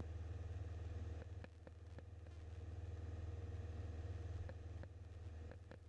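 Grumman Tiger's four-cylinder Lycoming engine droning steadily in flight, heard as a low, even hum in the cockpit audio, with a few faint clicks.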